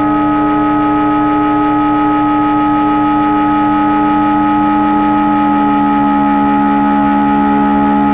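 Loud electronic drone noise from a Hewlett-Packard 200C audio oscillator layered with frequency analyzer units: many steady tones stacked into one unbroken, dense drone. About five and a half seconds in, one of the strongest tones steps down slightly in pitch.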